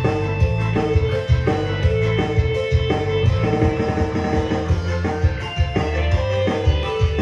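Instrumental music with plucked guitar notes over a heavy, steady bass line and regular drum beats.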